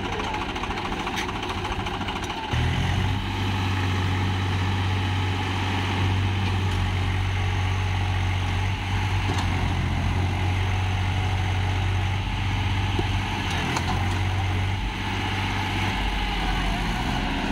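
Tractor diesel engines working under load as a Swaraj 735 FE, stuck in wet river sand, is pushed by a second tractor. The engine note rises sharply about two and a half seconds in and holds steady, then eases near the end.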